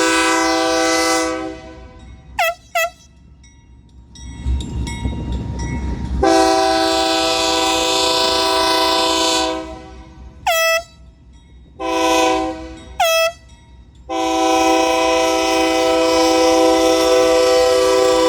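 BNSF GE Dash 9 locomotive air horn played as a horn show: long chord blasts alternating with quick short toots whose pitch sags as each cuts off. A low rumble of the engine and train fills a gap about four seconds in, and a last long blast starts about fourteen seconds in.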